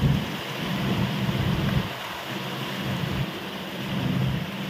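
Motorboat engine droning steadily, over rushing water and wind on the microphone; the hum dips about two seconds in and comes back.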